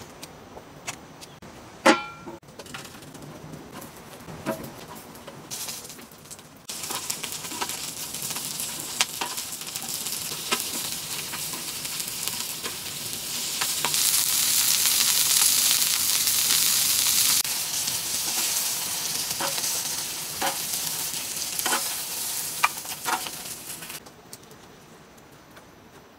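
Banana-leaf parcels of spiced banana heart sizzling on a hot flat pan: a steady hiss with small pops and crackles, starting about a quarter of the way in, swelling to its loudest in the middle and dying away near the end. Before the sizzling come scattered clicks and taps from hands working, with one loud sharp click about two seconds in.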